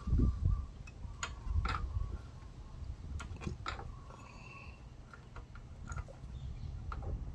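Light metallic clicks and taps, scattered and irregular, from espresso-machine valve parts and hand tools being handled, over a low rumble that is strongest in the first two seconds.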